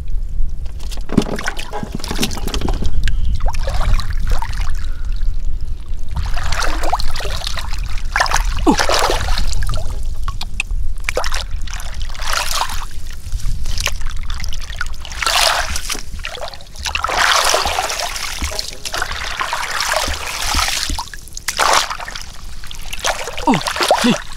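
Shallow water splashing and trickling in irregular bursts, with a steady low rumble underneath.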